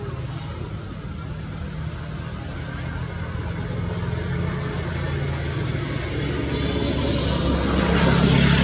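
A motor vehicle's engine running with a low hum and a rushing noise, growing steadily louder as it approaches and loudest near the end.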